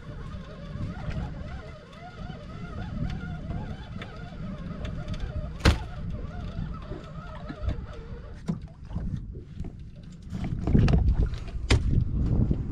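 Wind rumbling on the microphone on an open boat deck, with scattered clicks and knocks of gear being handled and one sharp snap about six seconds in; the wind rumble grows louder near the end.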